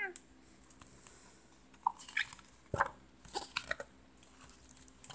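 A picture book's page being turned and the book handled: a few short paper rustles and clicks, with one sharper knock a little under three seconds in.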